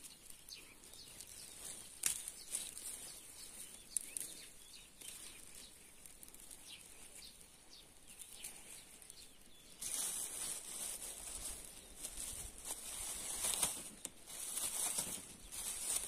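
Pine branches and needles rustling, with small clicks and snaps, as green pine cones are picked off by hand. The rustling gets louder and busier about two-thirds of the way through.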